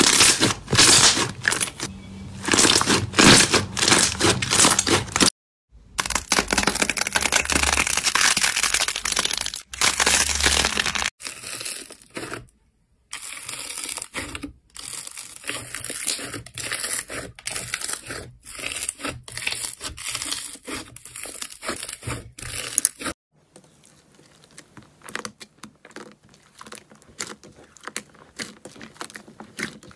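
Hands squeezing, stretching and kneading slime: wet squishing with dense, rapid crackling and popping of trapped air. It comes in several takes with brief cuts between them, loud at first and clearly quieter for the last several seconds.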